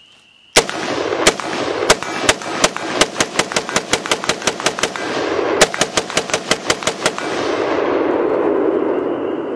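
Sig Sauer MCX Rattler short-barreled rifle in 5.56 being fired: a few spaced shots, then two fast strings of about five shots a second with a brief pause between them. A rolling rumble lingers for about two seconds after the last shot.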